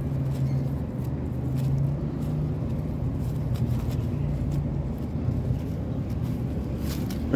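Steady low motor rumble with a few faint, short rustles.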